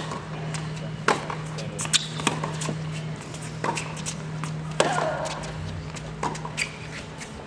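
A tennis rally: a serve, then tennis balls struck by rackets and bouncing on a hard court, sharp pops about once a second, over a steady low hum. A voice calls out briefly about five seconds in.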